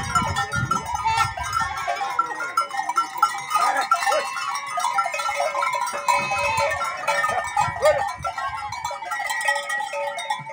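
A pen full of goats and kids bleating over one another, many calls overlapping, as the kids are let in to suckle their mothers.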